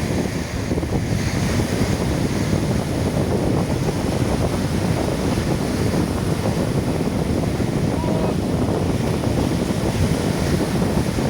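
Sea surf washing, with wind buffeting the microphone.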